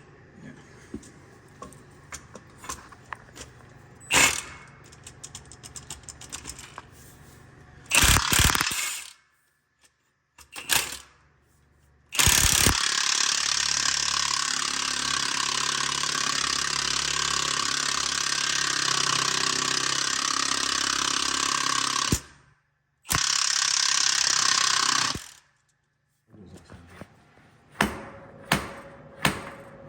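Hand ratchet wrench clicking on seized suspension fasteners, with a heavy metal clank about eight seconds in. Then a power tool runs steadily for about ten seconds and again briefly, before ratchet clicking resumes near the end.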